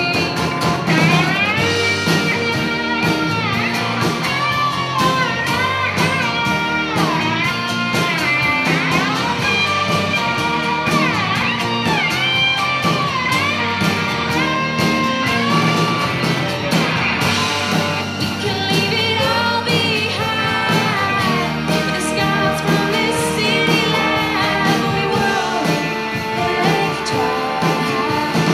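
A band playing a song live, a woman singing lead over guitars and drums.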